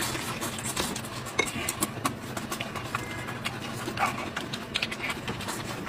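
Close-up mouth sounds of chewing sheep-head meat: irregular wet clicks and lip smacks. Around four seconds in, the gloved hands tear a piece of meat apart.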